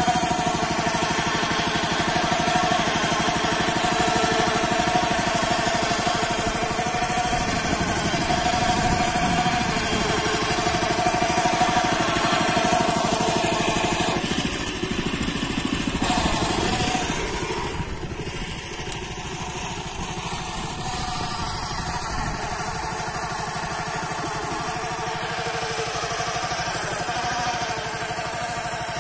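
Yağmur YET 300 two-wheel walking tractor (pat pat) engine running steadily while it pulls a plough to open furrows, turning quieter about 17 seconds in.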